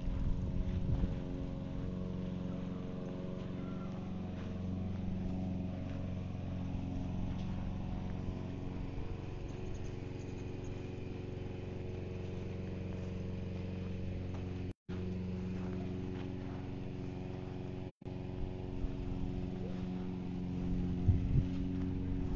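A steady machine hum at an unchanging pitch, with the sound dropping out for an instant twice in the second half.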